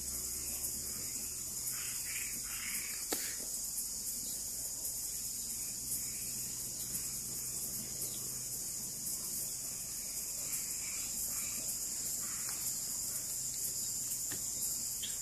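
Steady, high-pitched nighttime chorus of insects, with short scattered calls of frogs and tree frogs rising and falling in the middle range. One sharp click about three seconds in.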